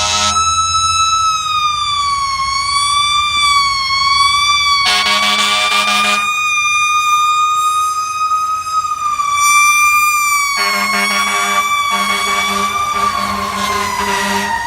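Fire truck siren wailing, its pitch slowly wavering and sliding down near the end. A heavy air horn blasts once about five seconds in, then gives a run of short repeated blasts in the last few seconds.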